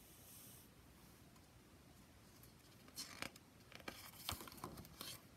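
A page of a large picture book being turned by hand: a few quick paper rustles and taps in the second half, otherwise near silence.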